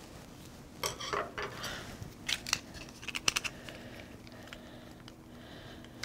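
A small screwdriver working the screw terminals of a plastic control terminal block, making light clicks and scrapes of metal on plastic, mostly in the first half.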